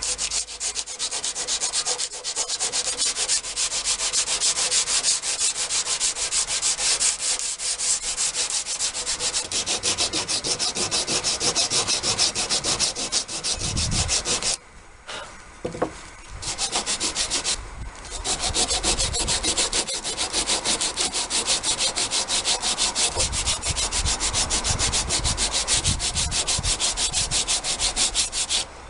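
Sandpaper rubbed by hand over wood in quick, rhythmic back-and-forth strokes, rounding off the edges of a wooden shelf and corbel. The strokes break off briefly twice a little past halfway.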